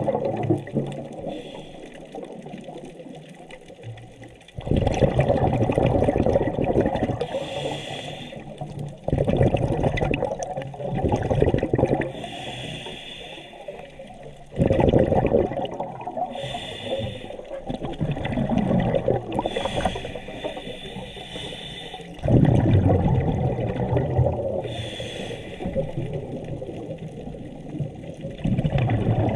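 Scuba diver breathing through a regulator underwater: loud gurgling surges of exhaled bubbles every several seconds, with the short hiss of an inhalation through the regulator between them.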